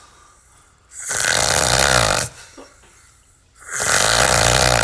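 A man snoring very loudly with a sawing sound: two long snores about a second and a half each, with a quiet breath-length pause between them.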